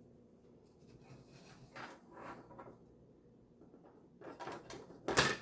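Small plastic model-kit parts being handled on a workbench: light rustles and taps, then a sharp click just after five seconds in.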